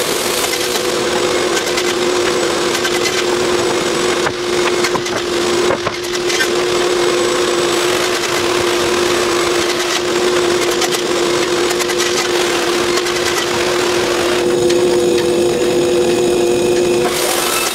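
Steady hum of sawmill-shop machinery running, with wooden boards knocking and clattering as they are handled.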